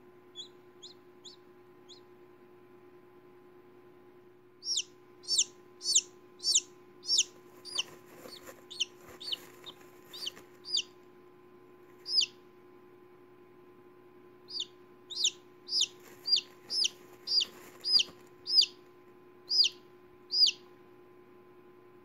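Newly hatched chick peeping: two runs of loud, short, high peeps that fall in pitch, a little under two a second, with a few faint peeps near the start.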